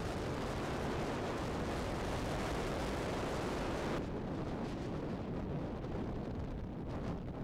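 Steady rushing wind and road noise from a moving car, with a low rumble and wind buffeting the microphone. About four seconds in, the upper hiss drops away abruptly, leaving a duller rumble.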